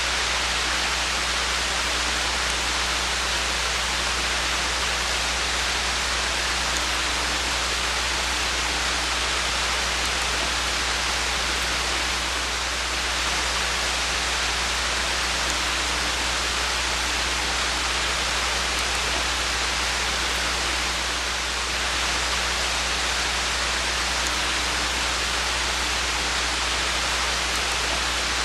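Steady, even hiss of rain falling, with a constant low hum underneath.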